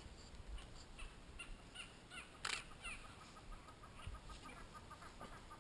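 Faint bird calls: a few short high chirps, then from about three seconds in a rapid run of clucking notes, about five a second. A single sharp click comes near the middle.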